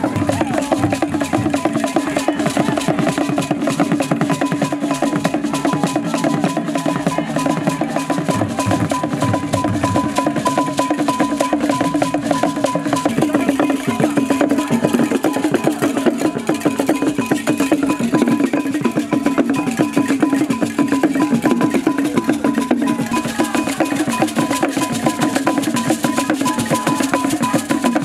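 Traditional Ewe drum ensemble playing a fast, dense rhythm: many sticks striking barrel drums, with a steady high tone running through it.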